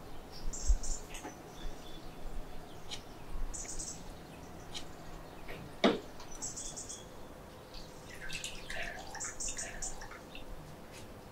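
Birds chirping in short bursts every couple of seconds. Light clicks and knocks from hands working in a clay pot, with one sharper knock about six seconds in as the clay pot is set on the gas stove grate. Water is poured into the pot near the end.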